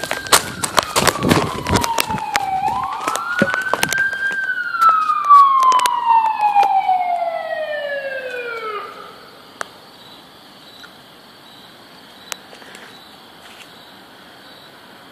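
Ambulance siren on a slow wail, sweeping up and down twice, with the second long fall cut off abruptly about nine seconds in. Sharp crackling clicks run over the first few seconds, and a faint steady high hiss follows after the siren stops.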